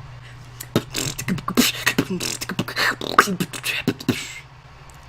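Beatboxing: a fast run of mouth-made kick, snare and click sounds mixed with short sliding vocal tones. It starts just under a second in and stops a little after four seconds.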